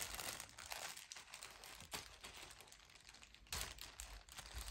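Clear plastic bag crinkling softly as a child handles it and picks at its opening, with a louder patch of crinkling about three and a half seconds in.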